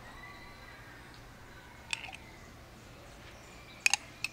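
A metal spoon clicking against a glass jar of strawberry jam a few times as jam is scooped out, over a faint steady room hum. One click about two seconds in, then a quick pair and one more near the end.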